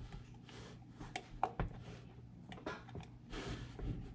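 A rubber intake coupler being pushed and worked onto a throttle body by hand: faint rubbing and rustling with a few small sharp clicks near the middle.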